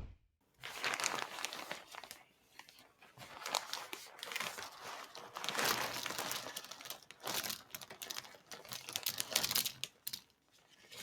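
Irregular crinkling and rustling in short spells, broken by brief pauses.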